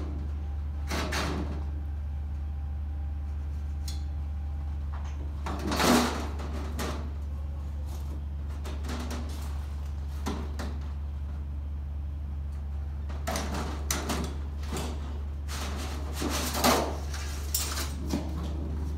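Aluminum trim coil being handled and bent on a portable sheet-metal brake: scattered clanks and rattles of the sheet and the brake's clamp, the loudest about six seconds in and a cluster in the last few seconds, over a steady low hum.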